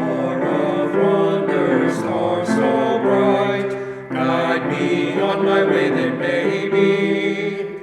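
A small group of men singing a Christmas song together in harmony, two sung phrases with a short break about four seconds in.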